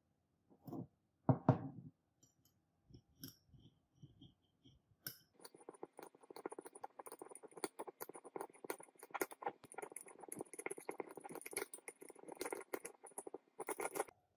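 Two dull thumps early, then from about five seconds in a metal spatula scraping and stirring inside a glass beaker, a fast run of small scrapes and clinks, as potassium cyanide crystals are mixed into a dissolved-gold solution for gold plating. The stirring stops just before the end.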